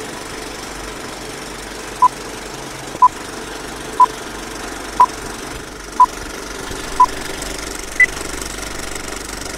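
Film projector rattling steadily, with the short beeps of a film-leader countdown: six beeps a second apart, then one higher-pitched beep about eight seconds in.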